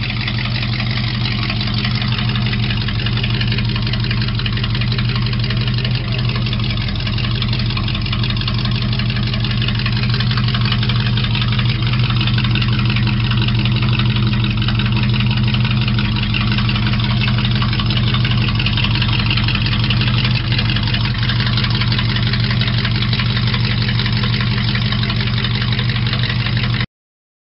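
Hot rod's exposed engine idling steadily with a low, even note and no revving, cut off abruptly near the end.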